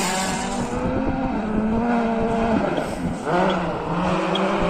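Ford rally car engine revving hard, its pitch rising and falling with gear changes and throttle lifts; in the second half the note comes in shorter pulls with dips between them.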